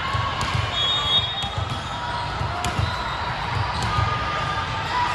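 Volleyballs bouncing and thudding on a gym floor, several thuds a second, with a few sharp smacks and short high squeaks.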